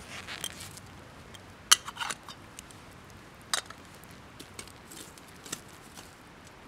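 Scattered light clicks and knocks of camp cookware and utensils being handled, with two sharper clacks about two and three and a half seconds in.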